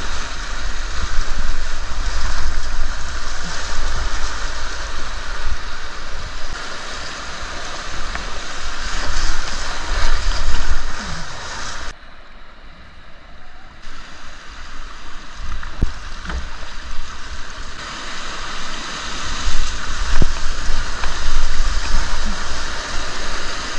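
Rushing river water, with wind rumbling on the microphone; the sound drops abruptly about halfway through, then builds again.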